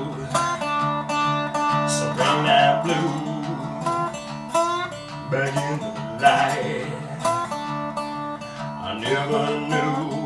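Lap-slide resonator guitar playing blues, its notes gliding up and down under the slide.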